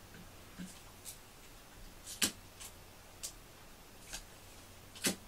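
Quiet room with scattered light clicks, about seven in five seconds at uneven spacing, the loudest a little past two seconds in and another near the end.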